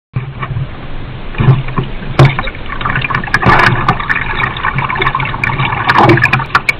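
Water splashing and sloshing around a canoe's hull as it is pushed off into shallow water, with scattered sharp knocks and clicks.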